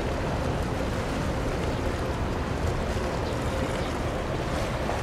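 Steady low rumble of a passing bulk carrier, with a faint steady hum, wind buffeting the microphone and water washing.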